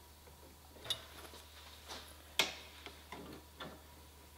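Faint, irregular light clicks and taps of hands working on the car's fender, one sharper click about two and a half seconds in.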